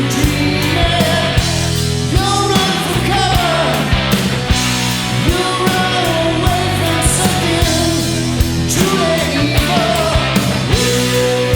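Loud rock music instrumental passage: a full band with steady drum hits under a lead melody line that bends and slides in pitch.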